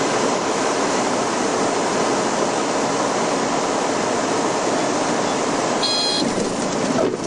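Steady cabin noise of a Commander 114B's six-cylinder piston engine, propeller and airflow as the aircraft flares over the runway to land: a dense, even rush. A brief high beep sounds about six seconds in.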